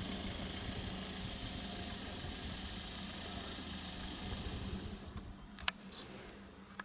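Safari game-drive vehicle's engine idling steadily under a high, hissing background. The sound drops away about five seconds in, and two sharp clicks follow.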